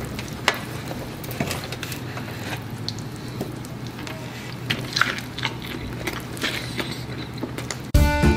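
Pizza being eaten fast: the slice torn from the pie, then biting, chewing and wet mouth sounds, heard as irregular smacks and clicks over a steady low hum. Fiddle tarantella music starts abruptly near the end.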